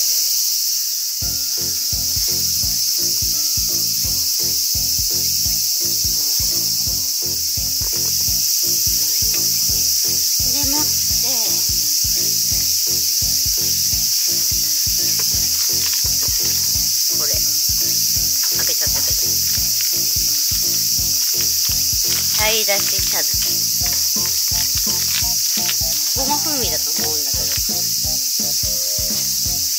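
Steady high-pitched chorus of evening crickets and other insects. Background music with a steady beat comes in about a second in.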